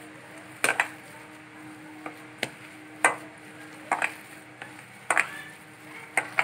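A hand mixing a mashed potato and vegetable mixture in a stainless steel bowl, with sharp clinks against the bowl about once a second, some coming in quick pairs.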